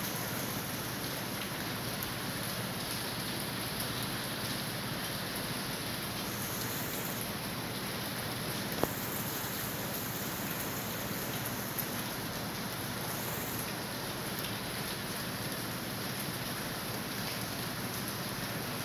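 Steady rainfall, an even hiss of falling rain, with one sharp tick about nine seconds in and a fainter one a few seconds later.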